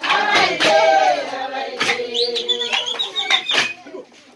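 A group of voices singing a chant together, with sharp hand claps at uneven intervals; the singing dies away near the end.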